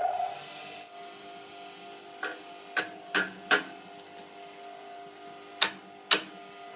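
Six sharp hammer blows on a seized bicycle bottom bracket: four within about a second and a half from about two seconds in, then two more near the end.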